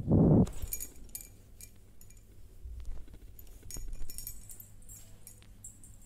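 A short loud low rumble right at the start, then scattered light metallic clinks and jingles.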